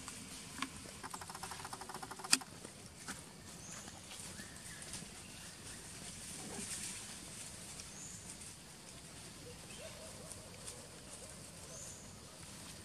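Macaques eating fruit from a metal plate: a quick run of small clicks about a second in, ending in one sharp tap on the plate, then quieter handling and chewing over outdoor background with faint high chirps.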